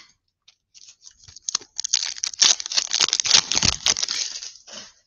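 Foil wrapper of a Donruss football card pack crinkling as it is torn open by hand: a few light crackles at first, then a dense crinkling from about two seconds in that stops just before the end.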